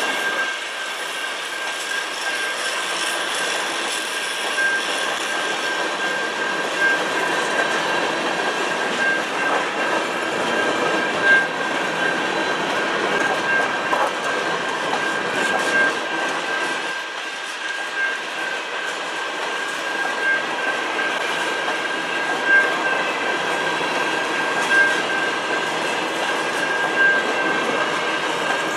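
CN freight train of Canpotex potash covered hopper cars rolling past a level crossing: steady rumble of steel wheels on rail, with scattered clacks and knocks as wheels cross rail joints, and a steady high-pitched tone above it.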